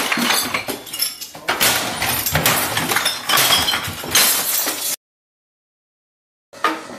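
Objects crashing and clattering, with glass and bottles clinking, as things are knocked and thrown about a cluttered room. The sound cuts out completely about five seconds in for about a second and a half, then starts again.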